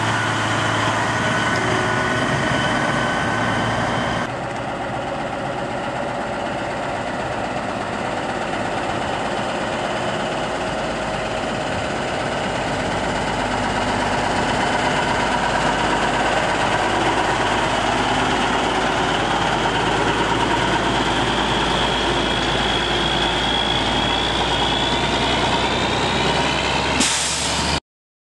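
Heavy truck engine running as a tandem-axle wrecker drives by slowly, growing louder as it approaches, with a short burst of hiss near the end.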